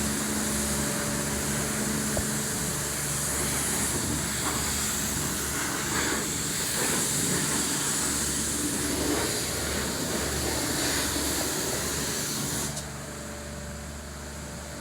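High-pressure water spraying from a car-wash lance, a steady loud hiss over the low hum of the wash pump; the spray cuts off suddenly near the end, leaving the pump hum.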